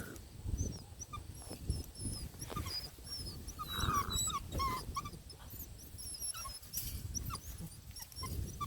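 Beagle puppies whimpering and yipping in short, high cries, loudest about four seconds in.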